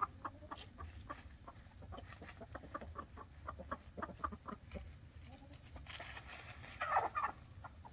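Buff Orpington chickens clucking softly in short, scattered notes, with a louder hen call and a rush of noise about six to seven seconds in.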